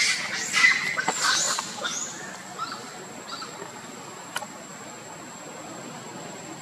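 Young long-tailed macaque screaming: a run of high, shrill cries that rise and fall in pitch, trailing off about three seconds in.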